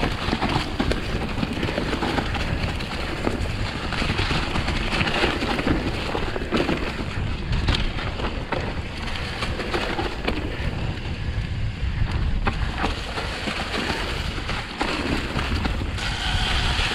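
Wind buffeting the microphone over the steady rumble and rattle of a bike rolling down a leafy dirt trail, with scattered small clicks and knocks.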